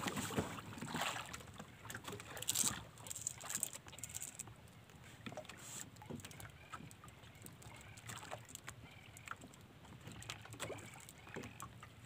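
Sea water lapping and splashing irregularly against the hull and bamboo outriggers of a small outrigger boat, with a few louder splashes in the first three seconds.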